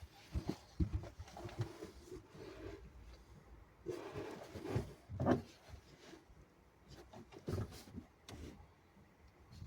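Scattered light knocks and clicks with faint rubbing, as of parts and tools being handled at a workbench; the sharpest knock comes about five seconds in.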